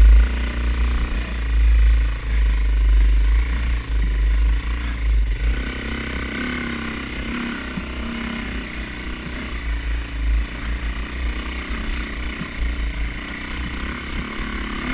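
Dirt bike engine running on a steep, rough trail climb, with heavy low rumbling and jolts over the first five seconds, then a steadier engine note.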